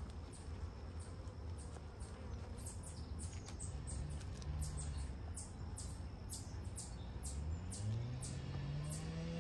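A bird chirping over and over, short high falling chirps two or three a second, over a low outdoor rumble. Near the end a low motor hum rises in pitch and then holds steady.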